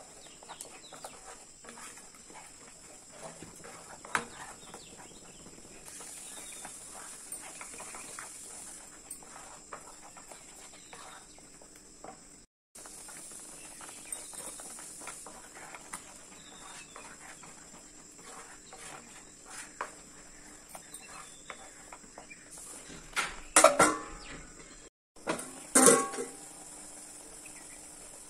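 Thick garlic chutney paste bubbling and spluttering in a kadai with small popping clicks, while a wooden spatula stirs and scrapes the pan. There are two louder knocks near the end.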